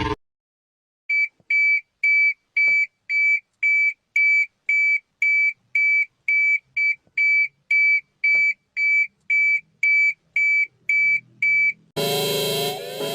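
Electronic emergency alert tone: a single high beep repeating about twice a second, some twenty times. Near the end it cuts off and a different, louder alarm with rising tones begins.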